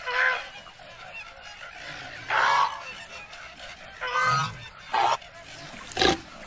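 Animated flamingos honking: five short, nasal honks spaced a second or two apart, the second one the longest and the last the loudest.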